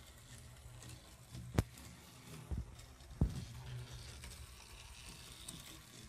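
Battery-powered Thomas TrackMaster toy engine running steadily around plastic track, its small electric motor giving a low hum. Three sharp clicks come about a second and a half, two and a half, and three seconds in.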